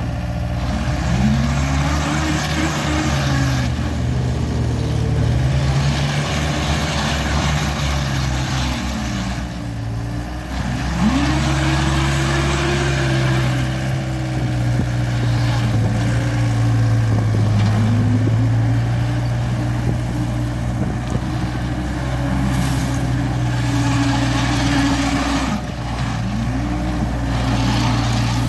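John Deere 319E skid steer's diesel engine running steadily. A higher whine above it rises and falls back several times as the machine is worked.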